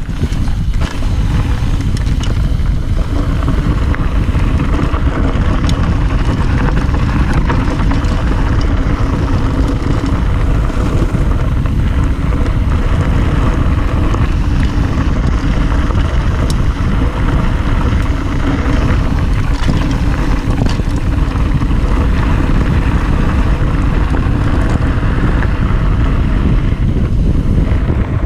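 Wind buffeting the microphone and a mountain bike's tyres rumbling over a dirt trail on a fast downhill run, with scattered clicks and rattles from the bike.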